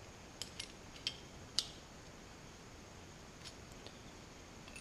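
Steel combination wrenches clicking lightly against an AN hose-end fitting as it is snugged onto braided fuel line: a few faint, scattered metallic ticks, most in the first two seconds and two more about three and a half seconds in.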